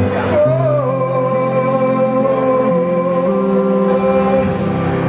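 A song with a band: a singer slides into one long held note about half a second in, over sustained accompaniment with a bass line that moves through several notes.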